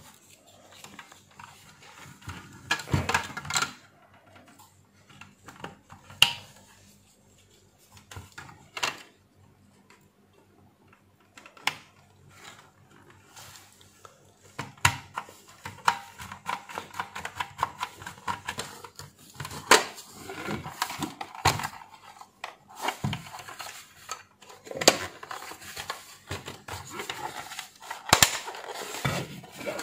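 Plastic parts of a steam iron being handled and fitted back together during reassembly: scattered clicks, knocks and rattles, with one sharper knock about six seconds in.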